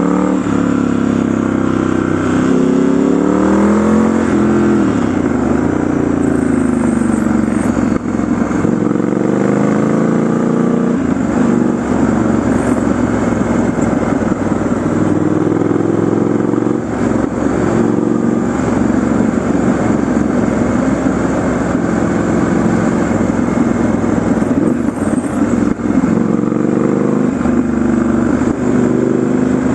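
Triumph Scrambler 1200 XE's 1200 cc parallel-twin engine pulling on the move: the revs climb, drop and climb again in the first ten seconds, then run more evenly. Wind rushes over the microphone throughout.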